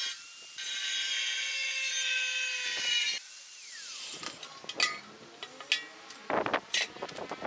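Angle grinder's cutting disc grinding through the steel wall of a tank with a high, steady whine, easing briefly at the start; about three seconds in it is switched off and its whine winds down. Then several sharp metal knocks and clanks follow as the cut-out piece of the tank wall comes free.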